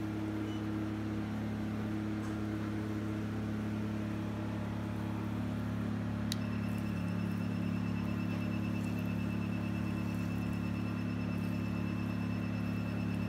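Diode laser hair-removal machine humming steadily. About six seconds in there is a click, then a steady run of rapid high beeps as the handpiece fires laser pulses.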